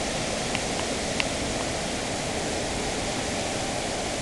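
Waterfall in heavy flow: a steady rush of white water pouring over a broad rock face, with a couple of faint brief ticks about a second in.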